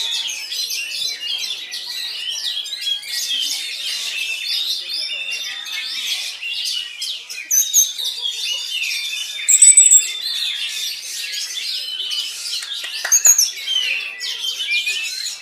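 Oriental magpie-robin singing a fast, varied song of whistles and chirps over a dense chorus of other songbirds. Loud high whistled notes stand out about ten seconds in and again near thirteen seconds.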